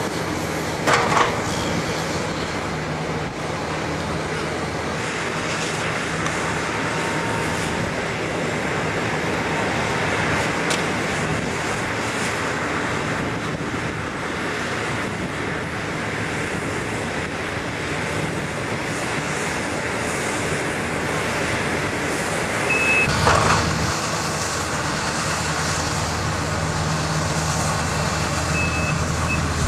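Heavy vehicle or machinery engine noise running steadily with road and traffic noise, broken by a short loud burst about a second in and a louder one near the end.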